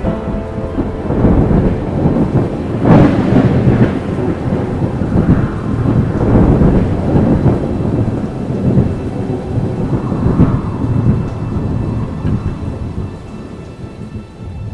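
Thunderstorm: rolling thunder over rain, swelling loudest about three seconds in and again around the middle, then easing off near the end.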